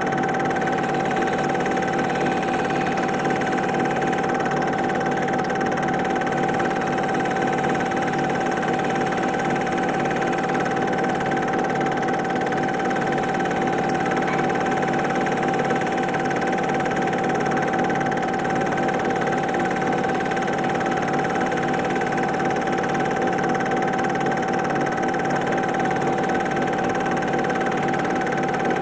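Super 8 film projector running: a steady mechanical whirr with a fast, even clatter and a constant high tone.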